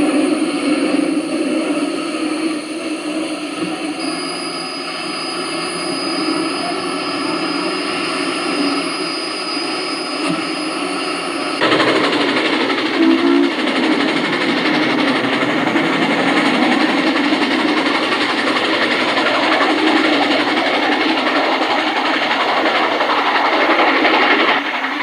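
Sound of a running HO scale model steam locomotive, a dense steady train sound with held tones. It changes abruptly about halfway through.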